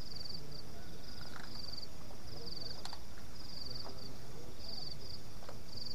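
Night insects chirping in short, high-pitched pulsed trills that repeat every second or so, often in pairs, with a few small clicks and knocks of things being handled.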